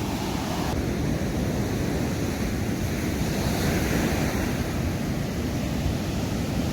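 Ocean surf washing against the rocky shore, with wind buffeting the microphone in a steady low rumble.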